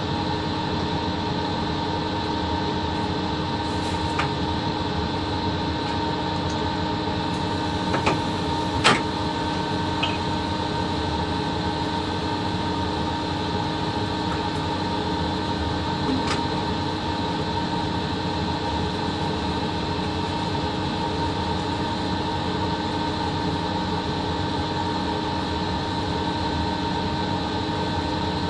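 Steady hum and whine of a VL80 electric locomotive's running auxiliary machines and electrical equipment, heard inside the cab. A few light clicks break in, the sharpest about nine seconds in.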